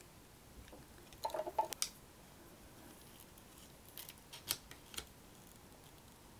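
Faint clicks and scrapes of a thin metal blade prying at the positive battery contact in a MiniDisc Walkman's plastic battery holder, in two short groups: about a second in, and again around four to five seconds in. The contact is stuck, binding on the plastic.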